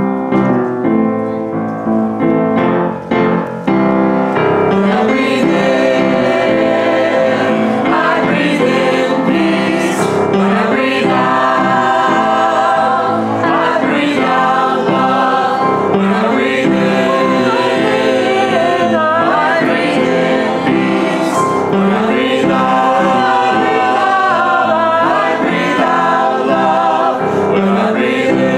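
Music: a choir singing with piano accompaniment, the voices coming in about four seconds in after a short piano introduction.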